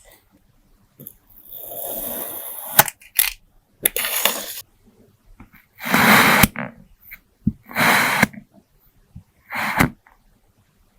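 Kinetic sand being squished and crumbled by hand, in about five separate short, noisy bursts. The first burst is longer, and a couple of sharp clicks fall between them.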